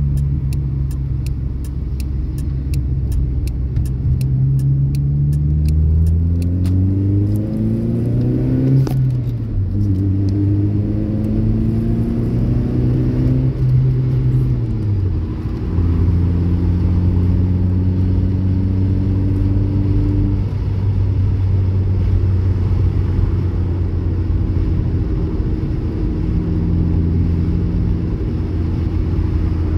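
Car engine heard from inside the cabin, revving up twice as the accelerator is pressed, each time dropping back sharply, then running at a steady pitch with a small step down about two-thirds of the way through. A regular ticking sounds during the first several seconds.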